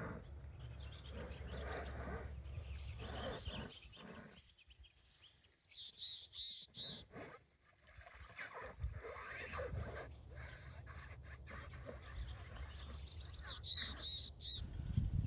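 A bird calling in short runs of high chirps, once about six seconds in and again near the end, over a low rumble and scattered small knocks.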